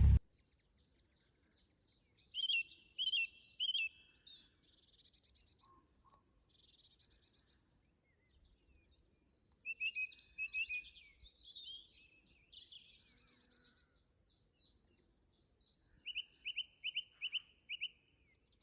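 Songbirds singing in short bouts of high chirps and trills, with near quiet between them; the last phrase, near the end, is a quick run of about seven repeated notes.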